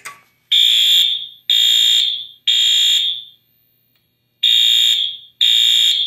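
Wheelock AS-24110W horn/strobe sounding the fire alarm signal: three blasts, a pause of about a second, then three more, the temporal-three evacuation pattern. The fire panel is in alarm because a Hochiki photoelectric smoke detector has tripped on canned test smoke.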